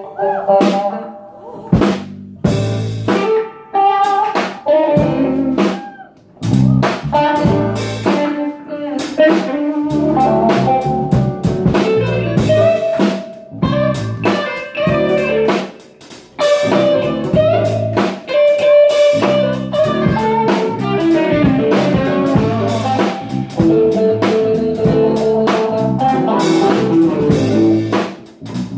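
A live band playing a song on drum kit, electric bass, acoustic guitar and keyboard. The first few seconds are sparse, with separate drum hits and gaps, and the full band comes in about six seconds in.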